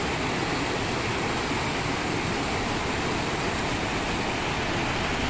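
Steady rushing of a mountain stream close by: an even, unbroken hiss of flowing water.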